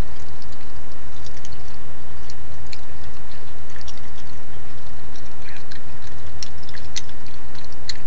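Steady low hum and hiss of a night-vision camera's recording, with scattered small clicks and ticks from a raccoon eating.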